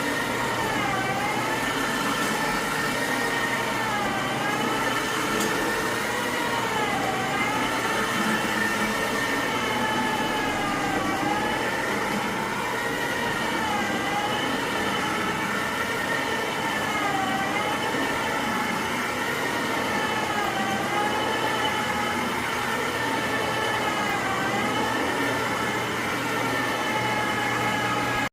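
Carpet-cleaning extraction machine running with a steady vacuum whine, its pitch dipping briefly every two to three seconds as the cleaning wand is pushed and pulled over the carpet in strokes.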